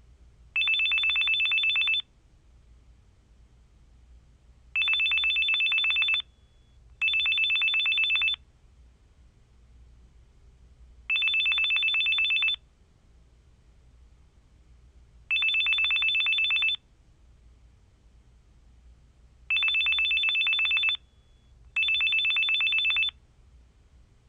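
Telephone ringing: seven rings of about a second and a half each, a high two-tone trill, two of them coming as quick double rings, with a few seconds of quiet between.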